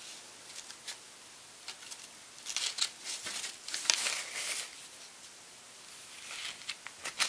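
Craft knife cutting through shoji paper along the edge of a wooden frame in short bursts of scraping strokes with small ticks, and paper crinkling as the trimmed-off strip is lifted away. The busiest cutting and rustling comes in the middle.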